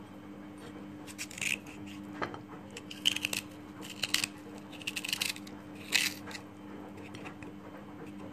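A hand-held corer scraping and gouging out the white flesh of a black radish, in short irregular scraping strokes about once a second, over a steady low hum.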